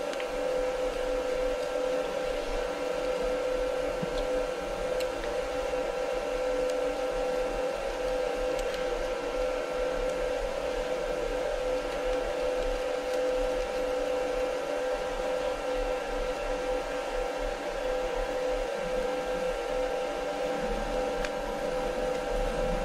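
Steady electric machine hum with a strong held tone and several fainter ones above it, unchanging throughout. A few faint, light metal clicks sound over it as a hex key works cap screws.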